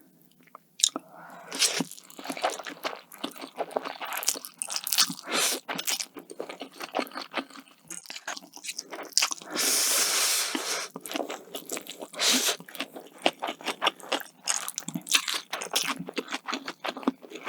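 Close-miked chewing of crunchy food: rapid, irregular crunches and bites, with a longer noisy stretch about nine to eleven seconds in.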